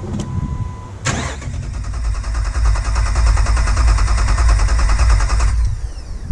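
Jeep Wrangler TJ engine cranking on the starter for about four and a half seconds without catching, with an even pulsing rhythm, then the starter stops and winds down with a falling whine. A click and a short steady beep come just before the cranking starts. This is the no-start the owner is diagnosing.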